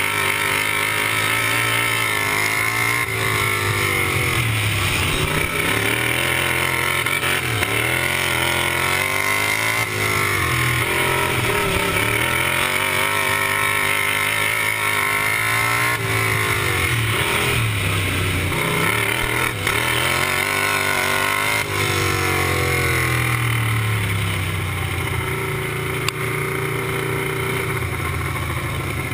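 Racing lawn mower's engine run hard, heard from on board, its revs dropping and climbing back again several times as the mower lifts off for the turns and accelerates out of them.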